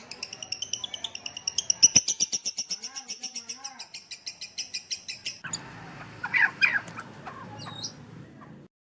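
A songbird singing a fast trill of rapidly repeated high notes for about five seconds, then sharper, varied chirps over a background hiss. The audio cuts off suddenly near the end.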